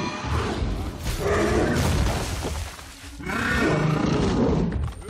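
A film troll creature roaring twice over the movie's music: two long roars, the second starting a little after three seconds in.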